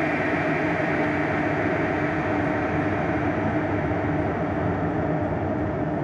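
Two 1500-watt stainless steel electric kettles, a Butterfly Rapid and a Pigeon Favourite, heating about 600 ml of water each: a steady rushing, rumbling noise as the water comes up to the boil.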